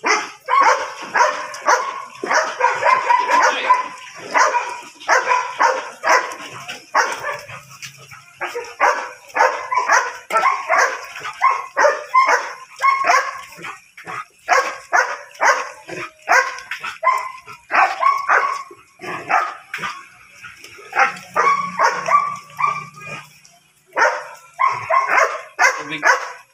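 Belgian Malinois barking over and over, a few short barks a second, with a couple of brief breaks near the end.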